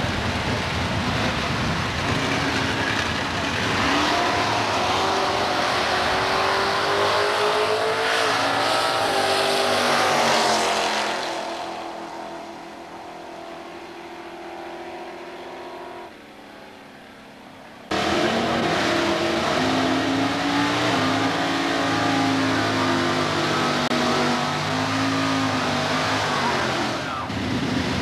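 Drag race car engines running loud, their pitch shifting up and down. Around the middle the sound fades to a much quieter engine, then cuts suddenly back to a loud, steady engine.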